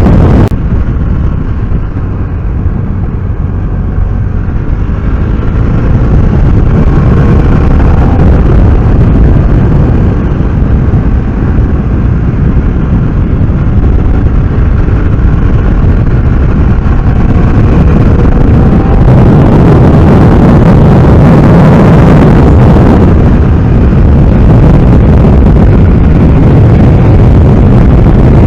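Loud wind buffeting on the microphone of a moving BMW F800R motorcycle, with its parallel-twin engine faintly rising and falling in pitch underneath as it speeds up and slows through curves.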